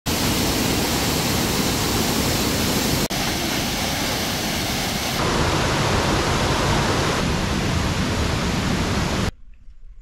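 Mountain stream rushing over granite boulders and small waterfalls, a loud steady roar of white water. The sound shifts at cuts about three and five seconds in, and stops abruptly shortly before the end.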